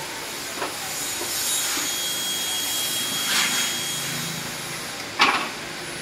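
Steady hiss of background noise with a few knocks from the aluminium scaffold tower as a worker climbs down its internal stairway, the loudest a single sharp clank about five seconds in.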